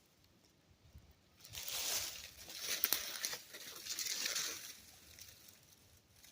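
Rustling noise in three swells of about a second each, with a few sharp clicks in the middle one.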